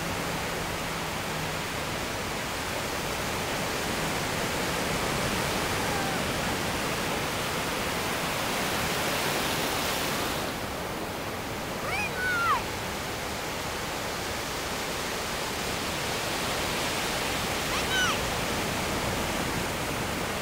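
Ocean surf breaking and washing up the beach: a steady rush of waves and foam. Brief high-pitched cries cut through it about twelve seconds in, and again near the end.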